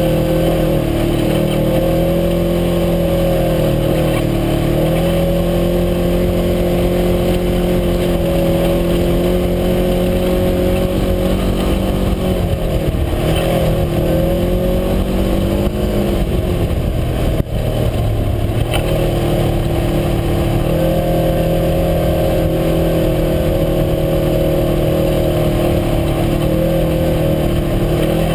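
UTV engine running steadily under throttle, its pitch dipping and recovering as the throttle eases about 12 to 14 seconds in and again around 16 to 19 seconds in. There is one sharp knock about 17 seconds in.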